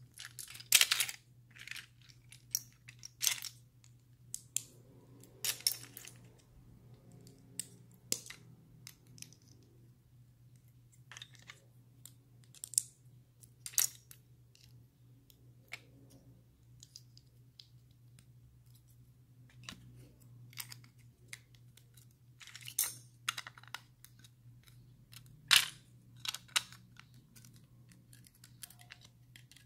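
LEGO plastic bricks and plates clicking and clattering as they are handled and pressed together by hand, in irregular sharp clicks and small clusters of clicks. A faint steady low hum runs underneath.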